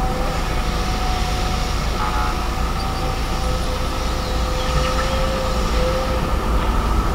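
Volvo EC210DL excavator running under load as it digs and swings a loaded bucket: a steady diesel drone with a high, steady whine over it.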